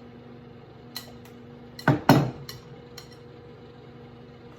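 A utensil clinking and tapping against a mixing bowl as batter is stirred: a few light clicks, with two louder knocks close together about two seconds in.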